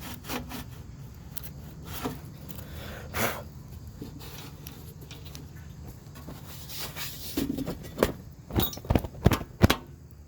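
Handling noises from working on a metal street light fixture: faint rubbing over a steady low hum, then a run of sharp knocks and clicks in the last few seconds.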